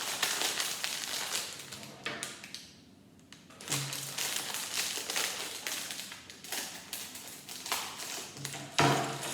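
Small plastic building bricks and their packaging being handled: a run of light clicks, taps and rustles, with a short lull about three seconds in.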